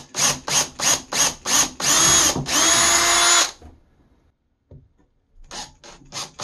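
Makita cordless drill boring a pilot hole into a wooden cabinet side. The trigger is pulsed in short bursts about three a second, then the drill runs steadily with a whine for about a second and a half, stops for a couple of seconds, and is pulsed briefly again near the end.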